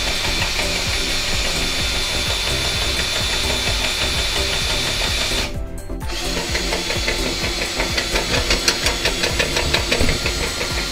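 Cordless drill spinning a flex-shaft drain-cleaning cable inside the pipe, with rapid rattling, to scour hardened grease from the drain. The sound breaks off briefly just over halfway, and the rattling is denser afterwards. Background music plays underneath.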